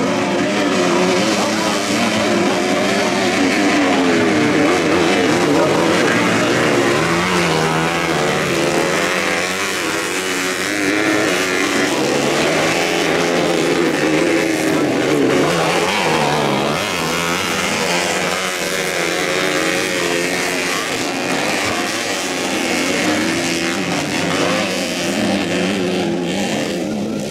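Dirt bike engines at a motocross race revving up and down, their pitch rising and falling continuously as the riders work through deep mud.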